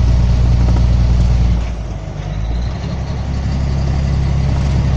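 Truck's engine running at highway speed, heard from inside the cab with road noise. About a second and a half in the engine note dips and quietens, then comes back steady about a second later.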